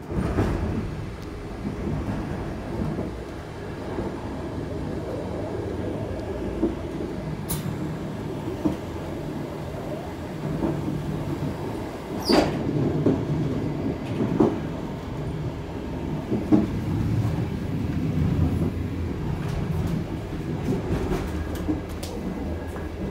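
Czech Railways passenger train running: a steady low rumble, with scattered sharp knocks and clanks, the loudest about twelve seconds in.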